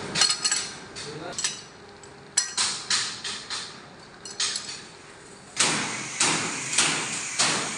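Repeated hammer taps on a metal workpiece held in a lathe chuck, knocking it true. The taps come irregularly, in short runs. From about five and a half seconds in they turn steadier and come about every half second over a louder background noise.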